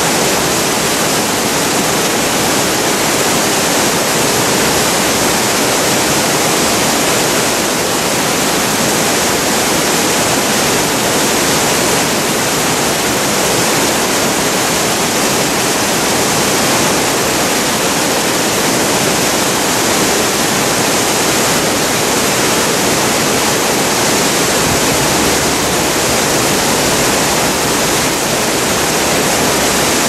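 Steady rushing of a waterfall and fast river current, a loud, even wash of water noise with no breaks.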